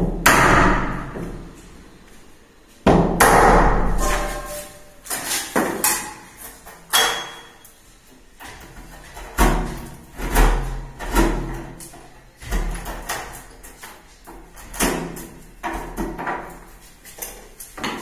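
Irregular hammer blows on a chisel cutting into a wooden door and frame to seat a rim deadbolt. The two heaviest blows come at the start and about three seconds in, each with a ringing tail, followed by many lighter knocks.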